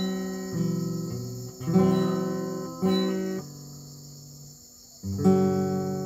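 Background acoustic guitar music: plucked and strummed chords that ring out and fade, with a pause of about a second and a half midway, over a steady high-pitched hiss.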